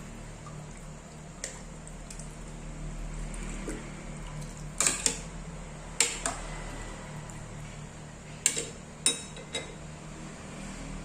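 A cooking utensil knocking against a pot several times, in small clusters of two or three strikes, over a steady low hum.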